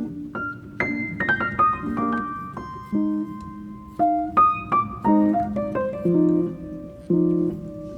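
Background piano music: single notes and chords struck and left to ring in a slow melody.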